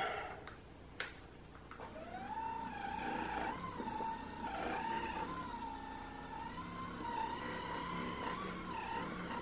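Brushless 24-volt motor of an Opove Apex Pro massage gun: a click about a second in, then the motor starts with a whine that rises in pitch and runs on, wavering and dipping now and then as the gun is worked against the forearm.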